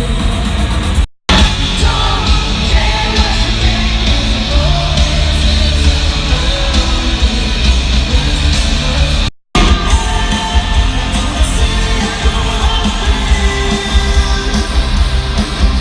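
Loud live rock concert music recorded on a phone in the crowd: heavy bass and drums with singing and yelling over it. The sound drops out completely for an instant twice, about a second in and about nine seconds in.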